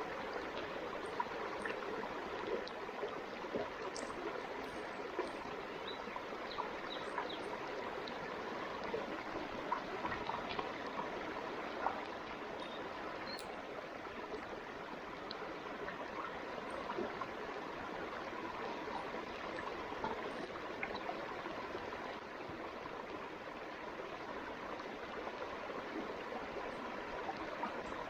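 A stream running steadily, with small scattered ticks throughout.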